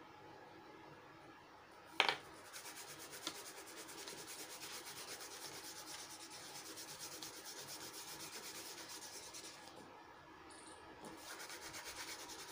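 A blue crayon rubbed quickly back and forth on paper while an area is coloured in, in fast, even strokes. There is a sharp knock about two seconds in, and the strokes stop briefly near the end before starting again.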